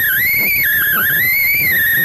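Cessna 172 cockpit sound: a wavering high whine over a low rumble of engine and airflow noise.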